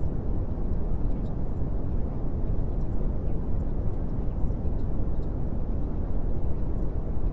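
A steady, deep rumbling noise with no breaks or pitch, the masking noise bed of a subliminal track.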